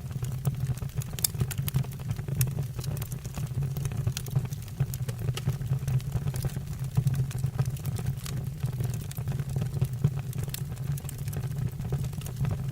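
Wood fire in a fireplace, logs crackling with frequent sharp pops and snaps over a steady low rumble of the flames.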